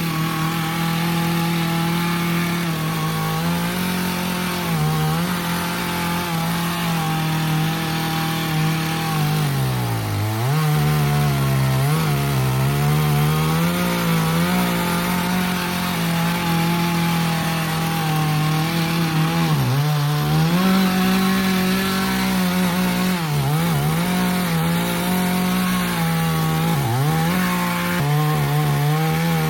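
Chainsaw running at full throttle, its pitch dropping briefly several times as the chain bogs down in the cuts, deepest about ten seconds in and again near the end.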